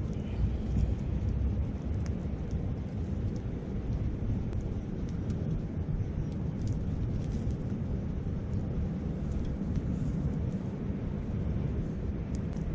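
Wood campfire crackling, with scattered sharp pops and ticks, over a steady low rumble of wind on the microphone and a river flowing.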